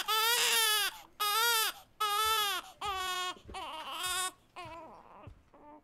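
Infant crying: a run of wails, each under a second long with short breaks between, that weaken into faint whimpers about four and a half seconds in.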